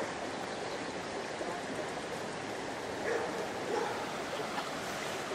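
Creek water running steadily, with a couple of faint, short calls from domestic waterfowl about three seconds in.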